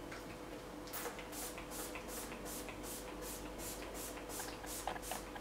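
Setting spray misted onto a face from a hand-pump spray bottle. Short hissing puffs come in rapid succession, about three a second, starting about a second in.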